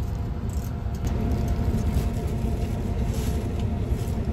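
Steady low rumble of a highway express bus under way, engine and road noise heard from inside the passenger cabin.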